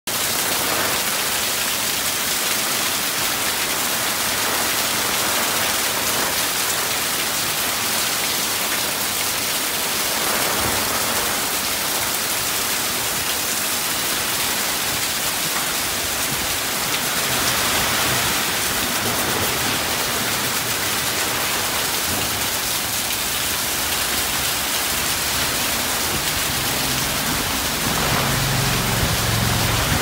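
Heavy rain pouring down in strong wind: a dense, steady hiss of rain. A deeper rumble swells near the end.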